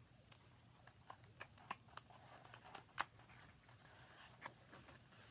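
Faint ticks and light rustling of a large photo book's paper pages being handled and turned, with one sharper tick about three seconds in.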